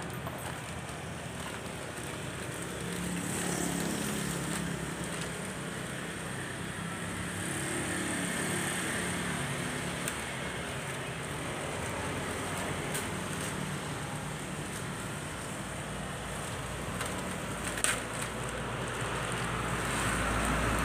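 Motor traffic passing by, swelling and fading, with a sharp click at the start and a short knock near the end from tools and parts being handled.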